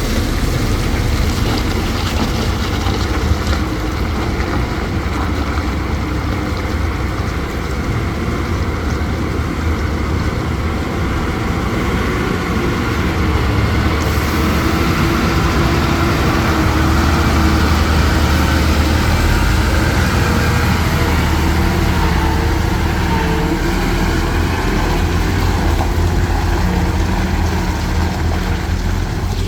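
Heavy diesel engine of an earthmoving machine running steadily, with its engine tone shifting and growing a little louder around the middle.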